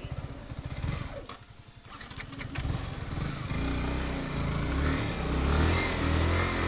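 Motorcycle engine ticking over with a pulsing beat, then pulling steadily and louder from about three and a half seconds in as the bike rides slowly across rough, sandy ground.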